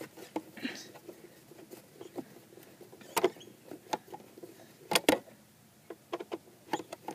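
Screwdriver and hands working loose the screws of a car's ECU mount: irregular small clicks and scrapes of metal and plastic, with two sharp clicks about five seconds in.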